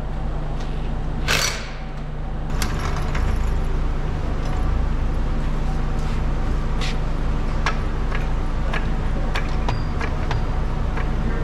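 A cordless impact wrench fires a brief burst on a forklift carriage bolt about a second in, over the steady hum of an engine, which gets louder a couple of seconds in. Scattered light metallic clicks follow.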